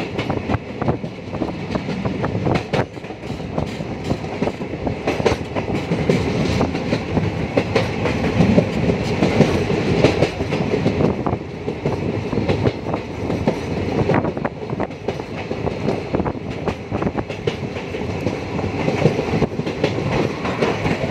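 Passenger train running over a river bridge, a steady rumble with the wheels clacking over the rail joints, heard from inside the coach.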